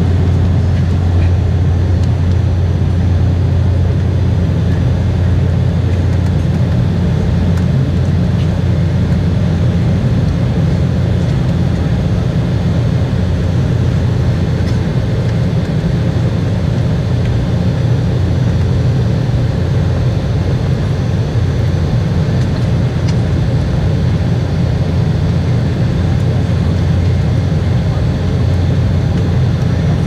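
Steady low drone inside the cabin of an Embraer E190 climbing after takeoff: its two GE CF34-10E turbofans and the airflow past the fuselage, heard from a window seat over the wing. The drone is deepest and strongest at the low end and does not change.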